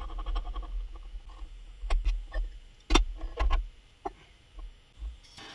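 A string of separate clicks and light knocks of hands and tools handling the engine parts, the loudest about three seconds in, over a low rumble.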